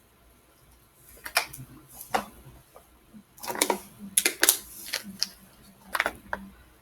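Irregular clicking and clattering, in scattered clusters with brief pauses, over a faint steady hum.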